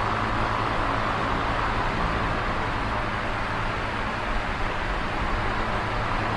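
Electric fan running at a steady speed: an even airy whir with a low hum underneath, unchanging throughout.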